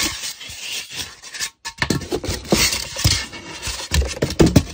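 Polystyrene foam packing blocks being pulled out of a cardboard box, rubbing and scraping against each other and the cardboard in irregular strokes, with a brief pause about one and a half seconds in.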